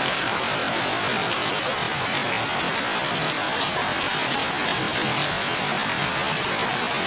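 Heavy rain pouring down steadily on garden plants: a dense, even hiss with faint scattered drop ticks.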